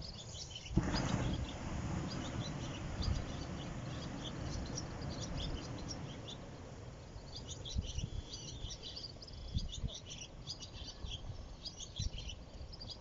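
Small birds chirping in quick, short high notes, thickening in the second half, over a low rushing noise that comes in about a second in and slowly eases off.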